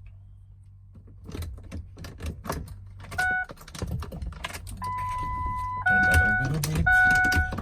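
Keys jangling and small clicks and rattles as the truck's gear shifter is worked, then the dashboard warning chime of a 2003 Ford F-350: a short beep about three seconds in, a steady tone for about a second, then chimes repeating about once a second.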